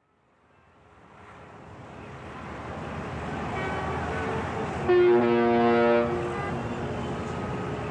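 Steady city ambience fading in from silence. About five seconds in a boat horn sounds loudly for about a second, after a fainter toot just before it.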